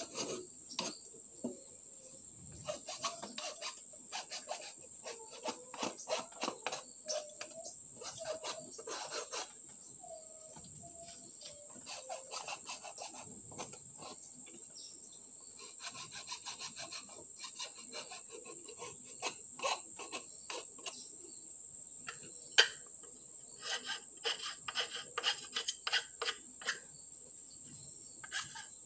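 Small hand file rasping back and forth on the edge of a wooden board, in runs of quick strokes with short pauses, smoothing the freshly cut wood. A steady high insect drone runs behind.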